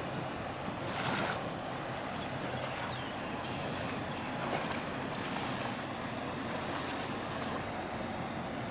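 Steady rush of wind on the microphone and lapping water, over a faint low hum. The rush swells briefly about a second in and again around five seconds in.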